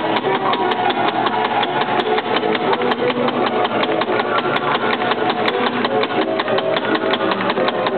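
Antique coin-operated dancing doll automaton working: its drive mechanism and dancing figure make a fast, even clatter, with the machine's music playing beneath.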